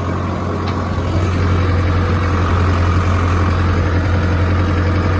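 Tractor engine running at a steady speed, a deep, even drone that does not change.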